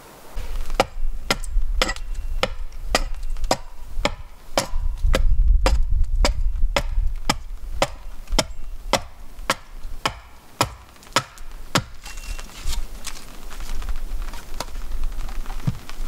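Axe hewing a wooden log into a cutting-board blank on a chopping block: a regular run of sharp chops about two a second, stopping about twelve seconds in, followed by a few lighter scattered taps, all over a low rumble.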